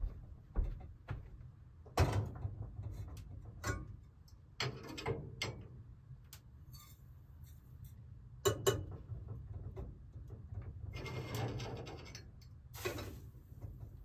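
Scattered knocks and metal clinks of a stainless Turkish double teapot being set down on a wood-burning kitchen stove and its lid handled, with a longer rubbing, scraping stretch near the end.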